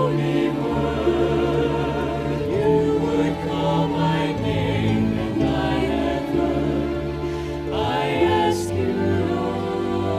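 Choral gospel music introduction: a choir holds long wordless chords with vibrato over the accompaniment, changing chord every second or two.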